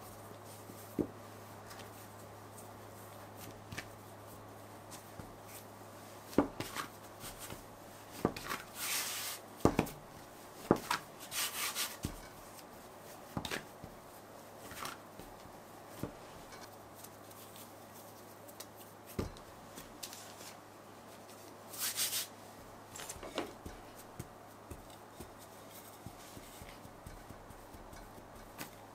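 Hands-on kitchen prep sounds: scattered light knocks and taps of tools and hands on a work surface, with a few short rustles, over a low steady hum.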